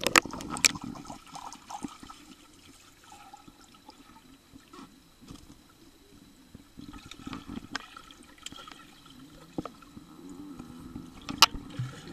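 Swimming-pool water splashing and gurgling around a camera at the surface, going muffled underwater. Sharp splashes in the first second, a quiet stretch, then more gurgles and clicks, with one sharp click near the end.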